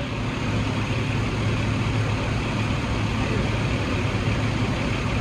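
A vehicle engine idling: a steady low drone that holds constant throughout.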